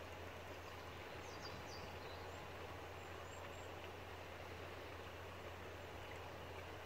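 Faint, steady outdoor background noise with a low hum, and a few faint, high bird chirps about a second and a half in.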